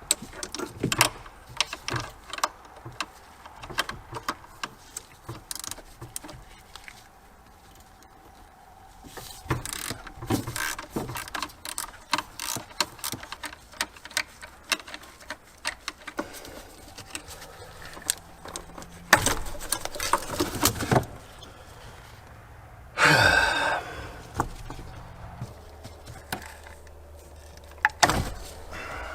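Scattered clicks, taps and clunks of a socket tool and plastic ignition-coil parts as the coils are unbolted, unplugged and swapped between cylinders on a Ford 5.4L V8. A few louder knocks come about two-thirds of the way in, followed by a brief louder rattle.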